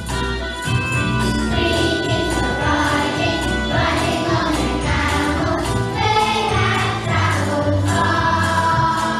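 A Christmas song: a choir sings over a backing track with jingle bells and a steady beat. The singing comes in about a second and a half in.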